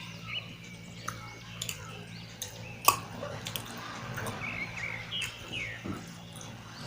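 Close-miked eating sounds: wet chewing, lip smacks and squelches of a mouthful of rice and mutton curry, with scattered sharp clicks, the loudest about three seconds in.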